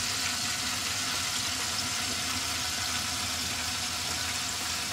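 Battered fish deep-frying in hot oil in a fish fryer: a steady, even sizzle.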